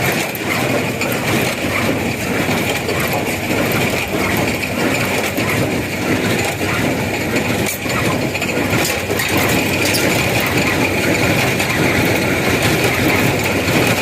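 A tractor engine running with a New Holland 275 square baler working behind it: a steady mechanical din with scattered knocks.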